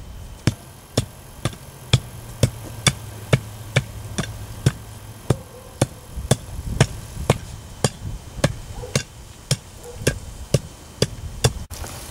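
Hand tamper pounding loose soil to compact it, in regular thuds about two a second that stop abruptly near the end.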